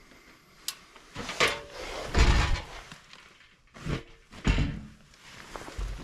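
A handful of separate knocks and thumps, with a sharp click under a second in and the loudest thumps about two seconds in and about four and a half seconds in: things being handled and set down.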